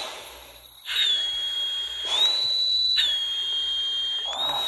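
SCBA low-air warning whistle sounding a shrill steady tone that comes in about a second in and steps up and down in pitch, with breaths drawn through the facemask's demand valve. The cylinder is nearly empty, its gauge needle already on zero.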